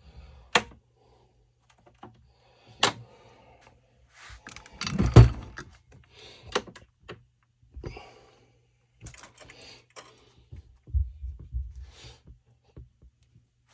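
Scattered clicks, taps and knocks from handling the string trimmer's parts and tools on a bench, with one loud thump about five seconds in. No engine is running.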